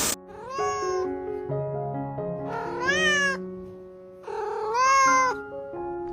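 A cat meowing three times, each call rising and then falling in pitch, the third the loudest, over background music.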